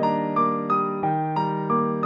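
Background music: a piano-like keyboard playing evenly spaced notes, about three a second.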